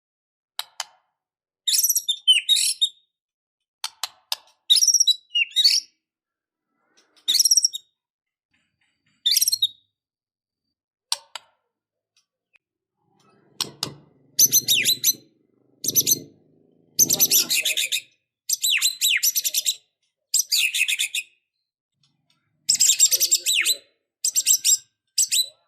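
White-rumped shama singing in short bursts of quick, varied high-pitched phrases separated by pauses, the bursts coming faster and fuller in the second half.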